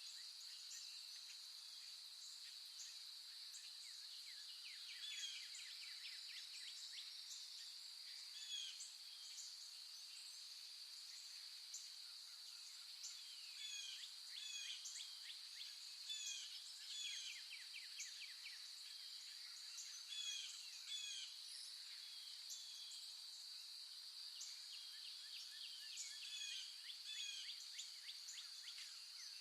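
Faint outdoor nature ambience: a steady high-pitched insect drone, with frequent short bird chirps and quick trills over it.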